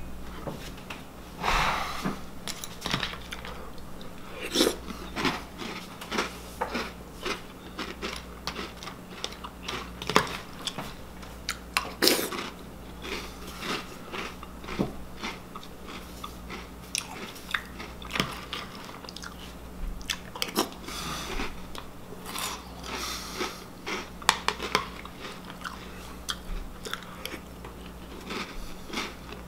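A person chewing mouthfuls of Reese's Puffs cereal, a continual run of irregular crunches.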